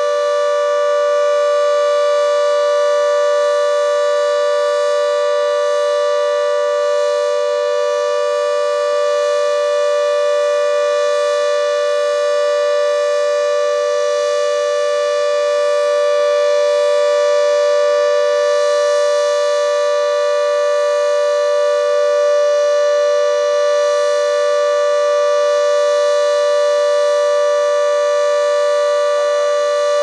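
Broadmoor Hospital's escape-warning siren sounding its test, holding one steady, unchanging pitch.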